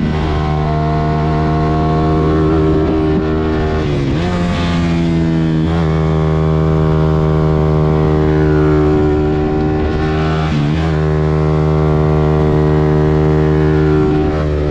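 Suzuki GSX-R150's single-cylinder engine running at steady revs. The note dips briefly and picks up again about four seconds in and again about ten seconds in.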